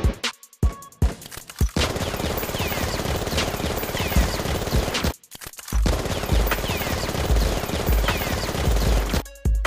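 Gunfire sound effect: a few separate shots, then sustained rapid automatic fire in two long stretches with a brief break about five seconds in, with a few short falling high whistles among the shots. A heavy bass beat of music runs under the second stretch.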